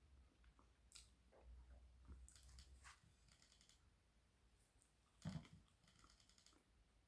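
Faint, close-miked eating sounds: scattered clicks and two short runs of rapid crackling, with one soft thump a little past five seconds in.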